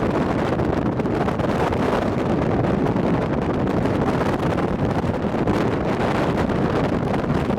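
Strong wind blowing on the microphone: a loud, steady rush of noise, heaviest in the low end.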